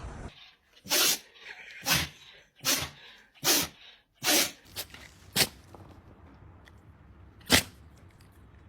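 A dog sneezing over and over: five sharp sneezes in quick succession, less than a second apart, then a few more spaced further apart.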